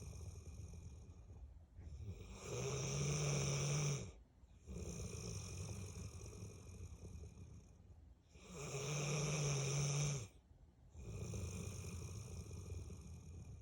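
Bullmastiff snoring in a slow, regular cycle: quieter airy breaths alternate with a louder, low-pitched snore, which comes twice, about two and a half and eight and a half seconds in.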